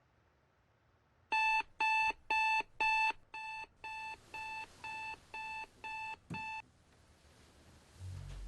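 Electronic alarm beeping about twice a second: four loud beeps, then six softer ones, cutting off about six and a half seconds in. A low hum starts near the end.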